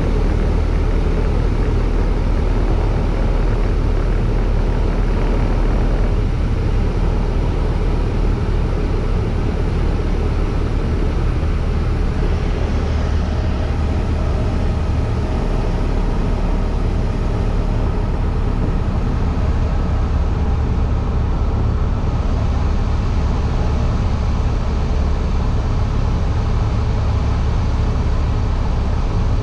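Cessna 152's four-cylinder Lycoming engine and propeller droning steadily, mixed with rushing wind noise, on final approach to landing.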